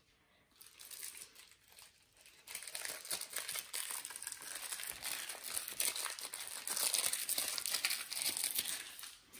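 Close crinkling and crackling of plastic, steady from about two and a half seconds in.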